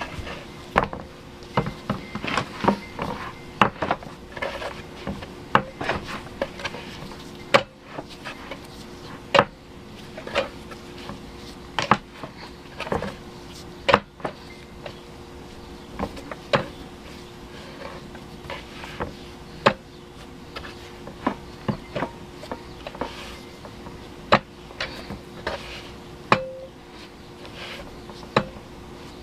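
Hands kneading bread dough on a floured board: irregular knocks and thumps, one or two a second, as the dough is pushed, folded and turned.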